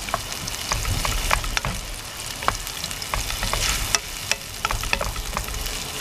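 Sliced onions sizzling in oil in a nonstick pan, with a wooden spatula stirring them and knocking against the pan in frequent sharp taps.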